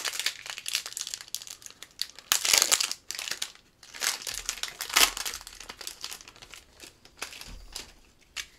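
Foil wrapper of a 1991 Fleer Ultra baseball card pack crinkling and tearing as it is opened by hand, in irregular crackles that are loudest about two and a half seconds in and again around five seconds.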